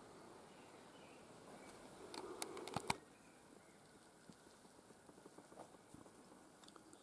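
Quiet forest with a short run of close crunching, clicking footsteps on a gravelly path about two seconds in, followed by faint scattered ticks of further steps.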